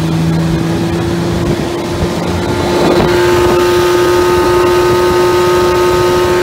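25 hp Mercury outboard motor running steadily at speed under load, pushing the boat through the water, its pitch climbing slightly partway through. It pulls with full power, which the owner takes as the power loss fixed.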